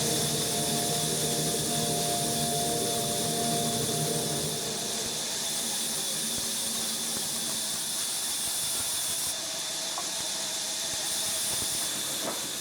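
Sawmill saw cutting wood, a steady hissing noise, with a lower hum that fades out about five seconds in.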